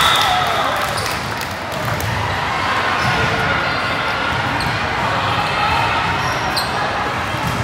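Indoor volleyball match in a large echoing gym: sneakers squeaking on the court floor and a few sharp ball hits and bounces, over steady crowd chatter.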